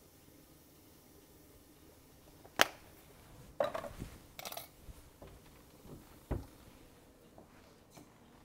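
Kitchen items being handled on a countertop: one sharp click about two and a half seconds in, a short run of knocks and rustling a second later, and a dull thump a little past the six-second mark.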